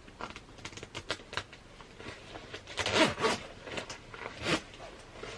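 Metal zipper on a vegan leather vest being worked, a run of short scraping strokes, loudest a little past the middle and once more near the end.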